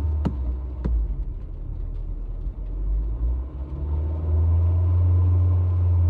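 Honda HR-V engine running with a low, steady rumble. It grows louder from about four seconds in as the engine is revved. Two sharp clicks sound in the first second.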